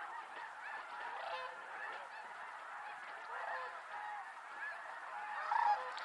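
A large flock of snow geese calling together at a distance, a dense, continuous chorus of many overlapping honks.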